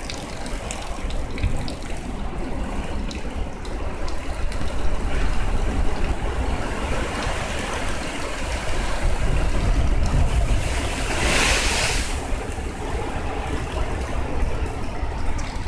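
Rough storm surf stirred up by a passing typhoon, waves washing and breaking continuously, with wind rumbling on the phone's microphone. A louder surge of noise comes about two-thirds of the way through.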